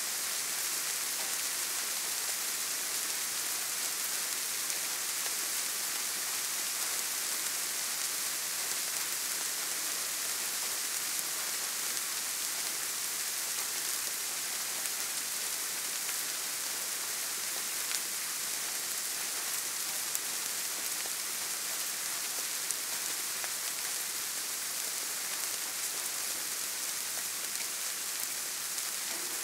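Steady soft rain: an even hiss of many small drops falling, with a few slightly louder single drops standing out now and then.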